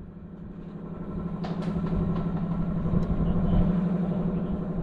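Car engine idling with a steady low drone, growing louder throughout, with a few light clicks over it.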